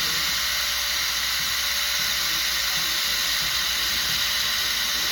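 Small angle grinder cutting concrete, running steadily at full speed with a constant high whine and a gritty hiss.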